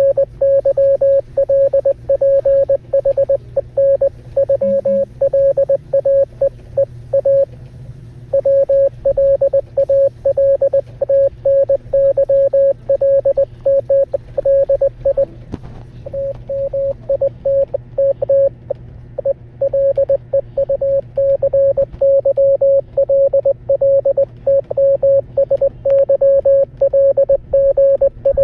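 Morse code played as a single steady mid-pitched beep, keyed on and off in fast dots and dashes, with short breaks about eight and sixteen seconds in.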